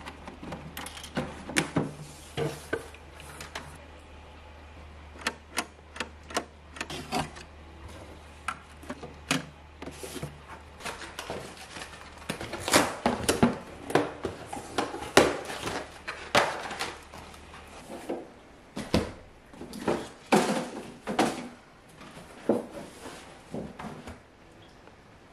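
Irregular taps, knocks and cardboard rustles from handling LEGO sets and their cardboard boxes: built models set on a shelf, then the empty boxes pulled open and folded flat. The knocks come thickest in the middle and later part.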